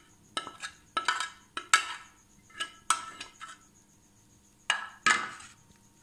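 Steel spoon clinking and scraping against a metal pan and a ceramic bowl while cooked egg is served out: a run of short, ringing clanks, a pause about three and a half seconds in, then two more near the end.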